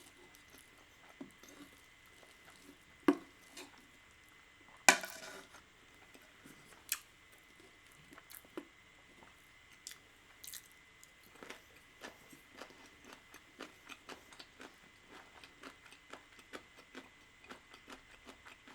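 Close-miked chewing of a mouthful of spicy fire carbonara risotto: soft, wet mouth sounds and small clicks, running at two to three a second from about eleven seconds on. A few sharper knocks come earlier, the loudest about five seconds in.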